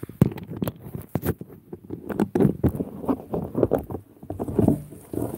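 Handling noise from a phone's microphone: irregular bumps and knocks, with the rain jacket's fabric rubbing against it as the phone is moved and set in place.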